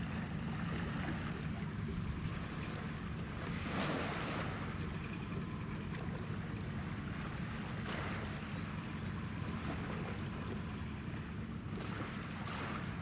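Harbour water ambience: a steady low rumble, with waves washing in three times, about every four seconds, and one brief high chirp near the end.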